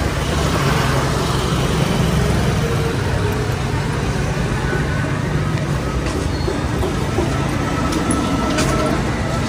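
Road traffic: a motor vehicle's engine and road noise running steadily close by.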